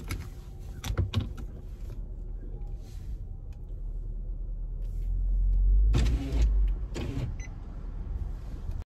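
Car cabin sounds: a few sharp clicks and knocks near the start and about a second in, over a steady low hum, then a low rumble that swells for a couple of seconds about five seconds in.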